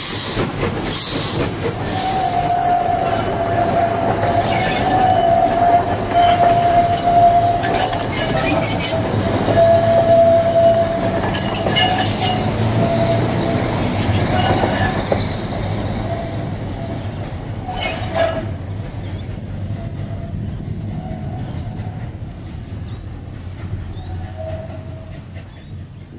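Steam train's passenger carriages rolling past close by, the wheels clacking over rail joints and squealing on the curve through the middle. The sound then fades steadily as the train draws away.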